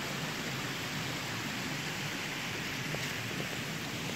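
Steady rushing of a mountain stream, an even hiss of running water with no breaks.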